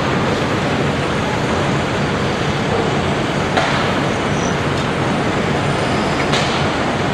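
Caterpillar 385BL excavator's diesel engine running steadily under working load. Two short, sharp knocks come through, one about three and a half seconds in and one near the end.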